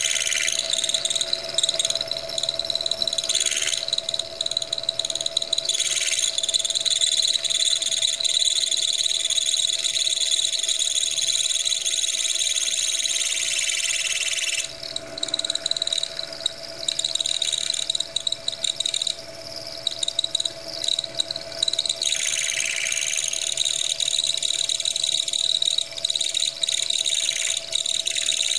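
Milling machine running, its end mill cutting out the inside of an aluminium piston to lighten it. It gives a steady high whine over a lower steady tone, and the cutting sound eases for several seconds from about the middle before picking up again.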